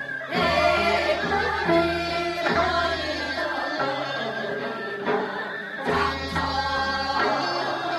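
Chorus of women singing a Gyeonggi folk song (Gyeonggi minyo) in unison, in sung phrases broken by short pauses.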